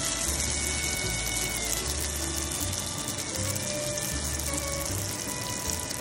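Lumpia deep-frying in hot oil, a steady crackling sizzle, over background music with held low bass notes.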